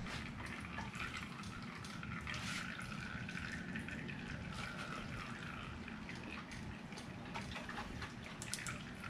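Warm engine oil trickling from a pit bike's drain-plug hole into a plastic drain pan: a thin steady stream spattering, with scattered drips.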